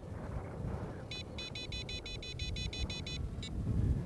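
Radiolink AT10 transmitter sounding its low-voltage alarm: a fast run of high beeps, about six a second, starting about a second in and lasting about two seconds, then one more beep. The hexacopter's 4S battery voltage, reported back by the PRM-01 telemetry module, is sagging under the full-throttle speed run. Low wind rumble underneath.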